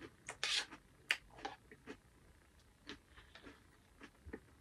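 A person eating a spoonful of Honey Nut Cheerios in almond milk: soft, irregular crunching and chewing, with small spoon-and-bowl clicks and scrapes.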